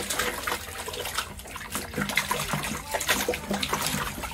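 Running water splashing over a soapy sneaker as it is rinsed clean, with irregular splashes throughout.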